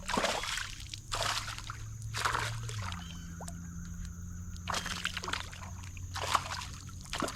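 A small hooked fish splashing at the water's surface as it is reeled to the boat, in several short splashes. A steady low hum runs underneath.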